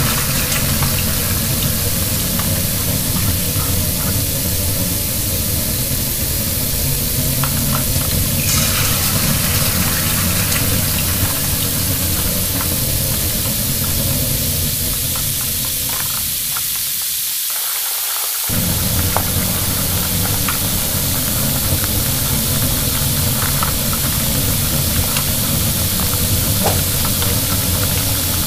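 Toy barbecue grill's sizzle sound effect: a steady frying-like sizzle that briefly thins out about two-thirds of the way through, with a few light clicks of plastic toy food pieces set on the grate.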